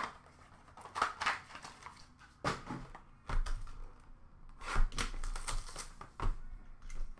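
Scattered clicks, taps and scrapes of trading cards and hard plastic card holders being handled and set down, with a few dull bumps against the counter.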